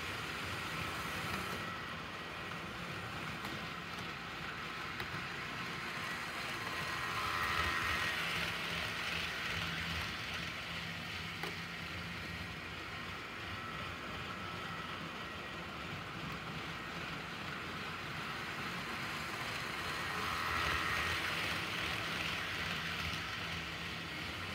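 HO scale model train running around the layout, a steady whir of the locomotive motors and wheels on the rails that grows louder twice, about thirteen seconds apart, with a faint motor whine each time.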